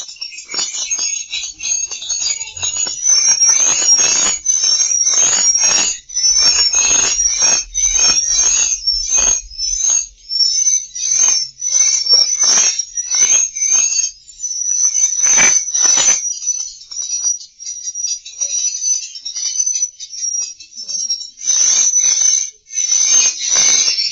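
Swiftlet twittering: rapid high chirps and trills repeating without a break, mixed with short rasping, crackly bursts. This is the lure sound used to call swiftlets in and get them to roost in a swiftlet house. The rasps thin out about two-thirds of the way through, leaving steadier chirps, then crowd back in near the end.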